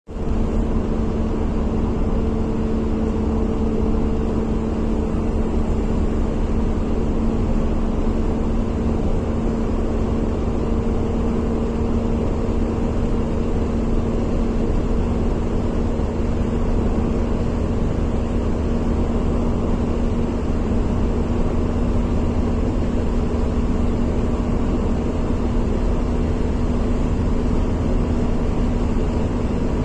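A steady mechanical hum: a constant low drone over a rushing noise, with no change in pitch or level.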